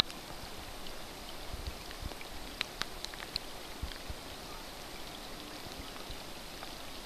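Steady rush of a flowing river under light rain, with scattered sharp ticks of raindrops landing close by, a small cluster of them a few seconds in.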